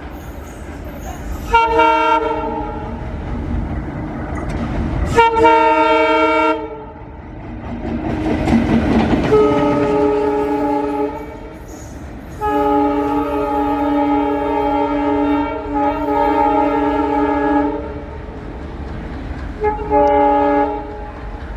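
ALCo WDM-3D diesel locomotive sounding its horn five times, the fourth a long blast of about five seconds, as the train passes. Between the blasts there is the rumble and clatter of the train running on the rails.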